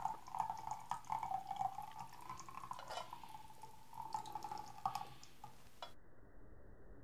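Thick sweetened mango pulp pouring in a thin stream from a tin into a glass measuring jug, with small drips and plops into the pulp already in it. The pour stops about five seconds in.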